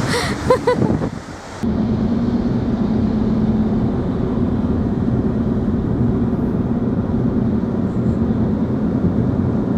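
Steady running noise of a vehicle: an even low rumble with a constant hum, starting abruptly after a brief voice at the beginning.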